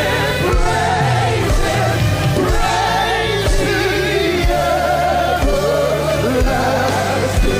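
Live gospel worship music: sung vocals with wavering, ornamented pitch over a band with sustained bass notes and regular drum beats.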